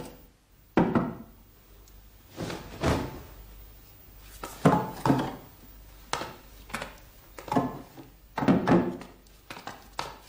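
Dull wooden thunks and knocks at uneven intervals, about every second or two, as heavy loads are handled and set down on wood.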